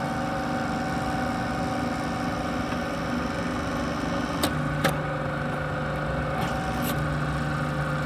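Hydraulic power pack for a rebar coupler crimping press running steadily with a droning hum. Two sharp clicks about half a second apart come about four and a half seconds in, and two fainter ones follow a couple of seconds later.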